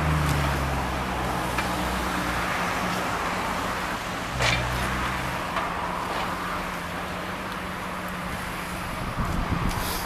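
Street traffic with a steady low engine hum, and a short knock about four and a half seconds in.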